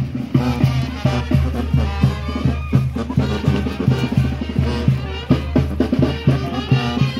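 Oaxacan brass band playing lively dance music, brass over a steady, quick beat of drum and bass.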